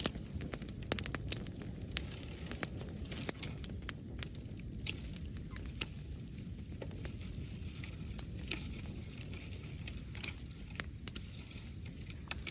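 Wood bonfire crackling, with scattered sharp pops at irregular intervals over a steady low rush.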